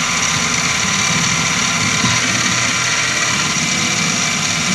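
Milling machine running steadily, its spindle turning a number 1 countersink that spots a hole in the billet ready for the drill.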